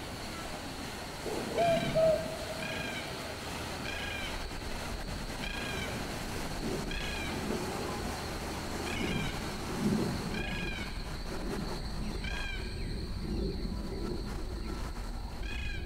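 A bird repeating a short, arched, pitched call about once a second, over a steady low rumble of city traffic. A louder brief squeal comes about two seconds in.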